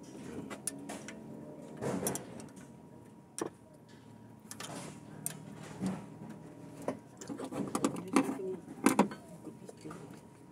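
Scattered metallic clicks and light knocks of a ring spanner on the rocker-arm adjuster locknuts of an open valve train, with the engine stopped; the loudest strokes come about two seconds in and in a cluster near the end.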